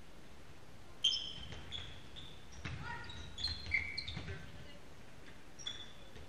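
Players' shoes squeaking in short high chirps on the sports-hall floor during a handball game, with a sharp bang about a second in and a few thuds of the ball bouncing.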